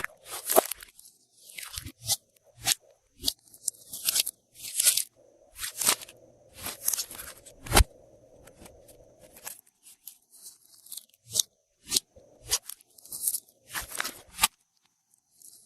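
Glossy slime being squished and worked by hand, giving short irregular crackling, popping bursts, roughly one or two a second, with brief quieter gaps.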